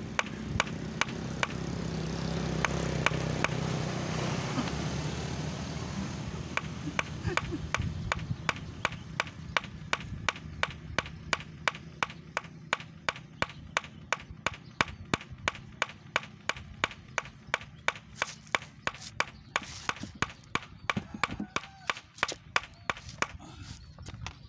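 Hand hammer striking steadily and rapidly, about three sharp blows a second, on a concrete curb. A low rumble swells and fades under the first several seconds.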